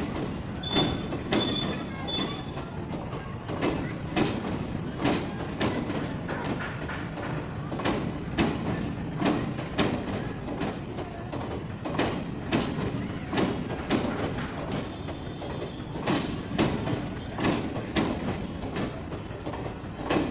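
Indian Railways passenger coaches rolling past, their wheels clacking over the rail joints in a run of knocks, often in pairs, over a steady rumble. A faint high wheel squeal comes in near the start.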